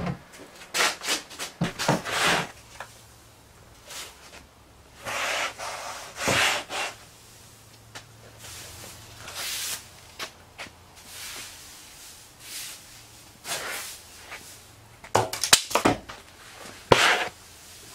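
Piles of aromatic red cedar shavings being scooped up off a concrete floor during a workshop cleanup: irregular scraping and rustling strokes with short pauses between them. A few sharp knocks near the end.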